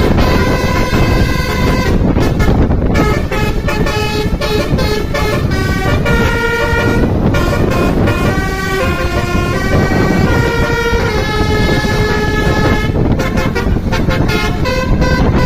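Bus basuri horn (telolet-style roof-mounted air horn trumpets) playing a melody as a run of held notes that step from pitch to pitch, with a couple of short breaks, over steady noise.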